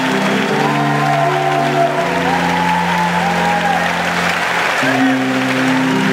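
Live performance of a slow song: sustained chords that change every couple of seconds, with a high gliding melody line over them and a steady hiss of room noise.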